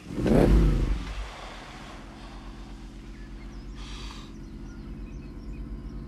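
Monster truck's big engine revving loudly with a falling pitch, then settling into a deep, steady, pulsing idle. A short hiss sounds about four seconds in.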